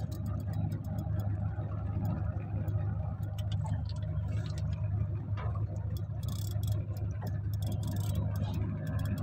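Small boat's outboard engine running steadily at low speed, with rapid, irregular light ticking over it.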